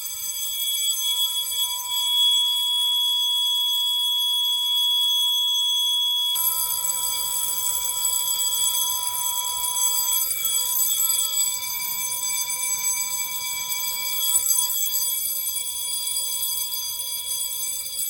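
Fire alarm system sounding a steady electronic alarm tone made of several held pitches, set off by a smoke-tested duct detector. About six seconds in, the highest pitch drops out and the tone changes character.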